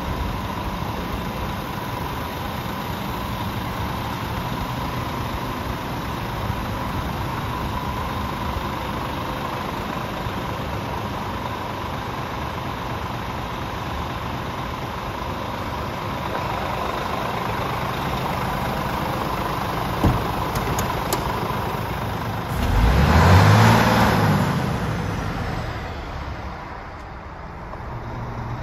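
Scania R450's 13-litre six-cylinder diesel idling steadily, with a sharp click about 20 seconds in and a brief rev that rises and falls a couple of seconds later.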